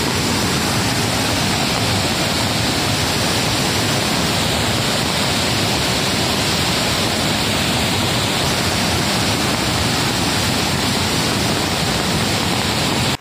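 Fast mountain river and waterfall rushing over rocks: a loud, steady, unbroken rush of water.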